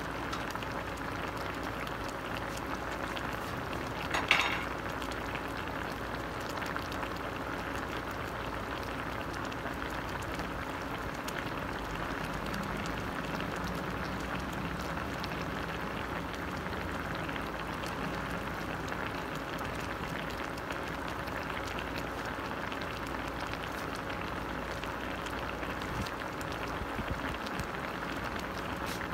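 Chicken adobo simmering in a stainless steel pot: the sauce bubbles with a steady hiss and many small pops. There is one short sharp sound about four seconds in.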